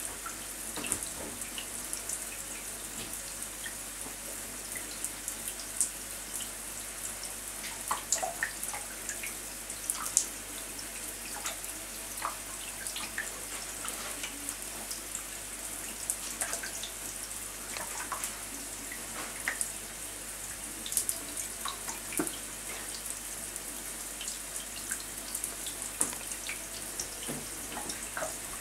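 Shower water running: a steady hiss of spray with scattered drips and small splashes on the shower tray.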